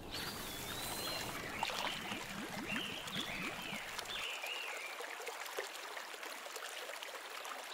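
Water running and trickling steadily, with several short high chirps over it; a low rumble underneath drops out about halfway through.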